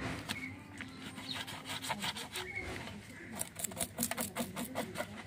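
Kitchen knife scraping the scales off a small whole fish on a stainless steel plate: short rasping strokes that come quicker and closer together about three seconds in.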